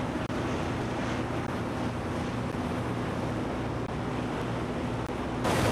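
Wind rushing over the microphone along with sea noise at open water, over a steady low mechanical hum. Just before the end the noise changes abruptly and turns louder and harsher.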